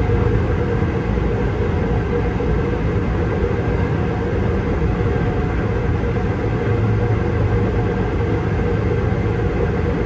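A steady mechanical rumble with a low hum, unchanging throughout.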